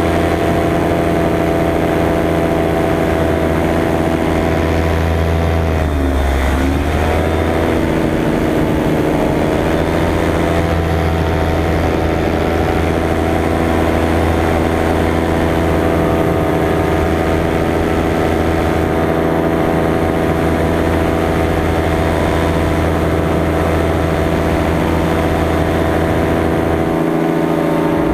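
Paramotor engine and propeller running steadily in flight; about six seconds in the engine pitch dips briefly and climbs back as it eases off and picks up again.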